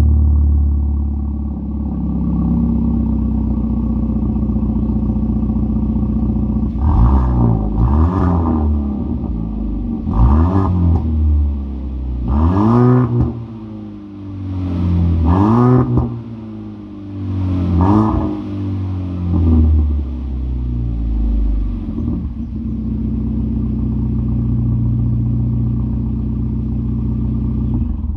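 Volvo V40 T3's 1.5-litre turbocharged petrol engine (B4154T4, Stage 1 tuned) through a muffler-delete exhaust with stainless straight pipe and 4-inch tailpipes: it idles, is blipped about six times in quick succession, each rev rising and dropping back, then settles to idle again.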